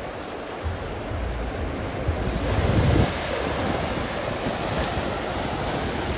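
Sea waves breaking and washing against shoreline rocks, one wave surging to its loudest about three seconds in. Wind buffets the microphone with a low rumble.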